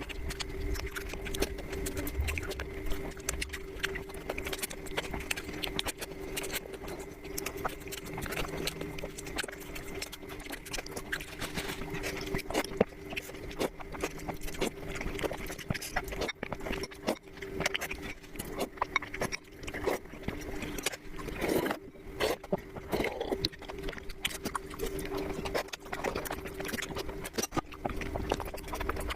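Close-miked eating sounds: a person chewing and biting food, with many small irregular clicks and smacks, over a steady low hum.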